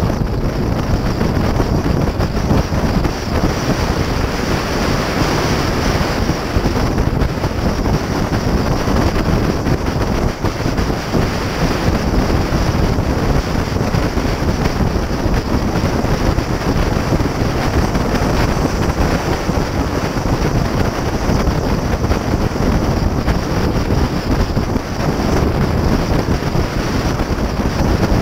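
Steady wind buffeting on the microphone of a camera on a Porsche Cayman S driven at about 40–50 mph, over a low rumble of road and engine noise.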